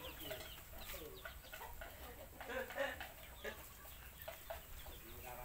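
A scatter of short, squeaky animal calls that bend up and down in pitch, several a second, the loudest cluster a little past the middle.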